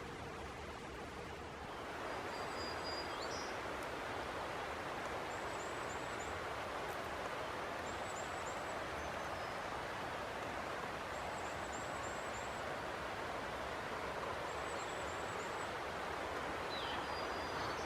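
Steady outdoor rushing noise with a small bird singing a short, very high phrase of quick notes every two to three seconds. The rushing gets louder about two seconds in.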